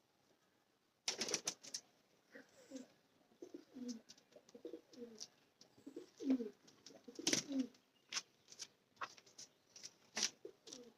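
Kalduma high-flyer pigeons cooing repeatedly, low falling coos starting about a second in, mixed with sharp clicks and knocks.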